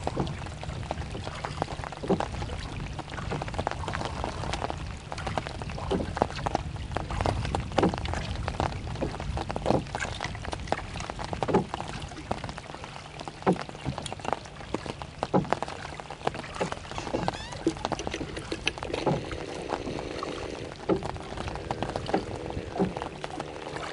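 Water lapping and slapping against the hull of a small wooden rowing boat, with irregular light knocks and clicks over a low steady rumble.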